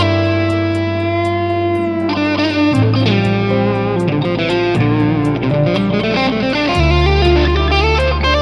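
Fender Stratocaster electric guitar playing an improvised lead in D minor over a backing with held bass notes that change about every two seconds. The guitar holds one long note for about two seconds, then moves into a quicker phrase with string bends.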